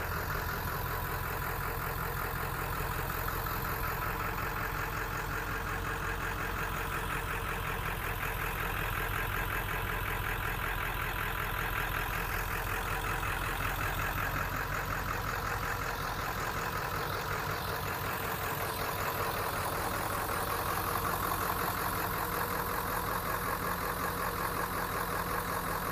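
Ford 7.3 L Powerstroke turbo-diesel V8 of a 1996 F-250 idling steadily with an even, rapid rhythm.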